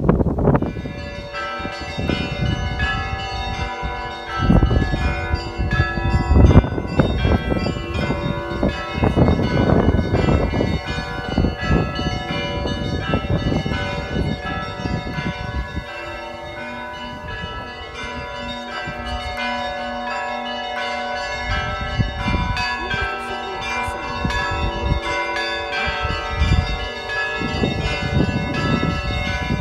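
Russian church bells ringing: many bells struck in quick, overlapping peals, deeper bells sounding among the smaller, higher ones, with their tones ringing on between strikes.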